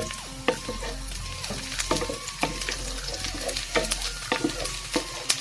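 Hot cooking oil sizzling in a pan, with frequent sharp crackles and pops of spattering.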